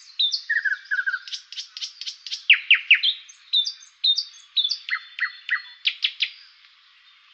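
Birds chirping: a quick run of short, high chirps and whistles, several a second, with a few sharply falling chirps in the middle, dying away in the last second.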